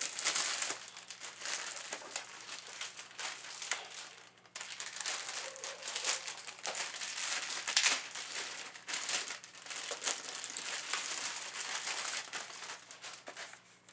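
Plastic keyboard packaging crinkling and rustling as it is handled, with a short lull about four seconds in and a sharp click just before eight seconds.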